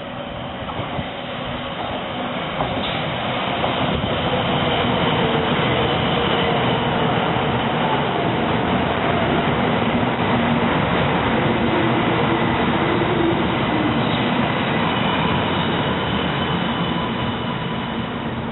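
JR West 700 series Shinkansen train pulling into the station and slowing, its running noise growing louder over the first few seconds and then holding steady. A few faint tones slide down in pitch as it slows.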